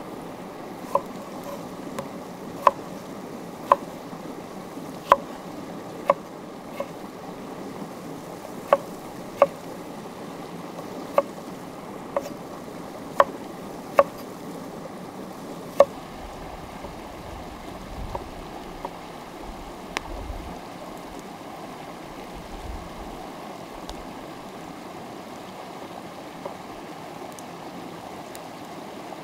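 A stream flowing steadily, with a string of sharp knocks about a second apart that stops about halfway through.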